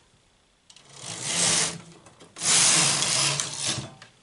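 Domestic flatbed knitting machine's carriage pushed across the needle bed to knit a row, a metallic sliding clatter in two stretches of about a second and a half each with a short break between.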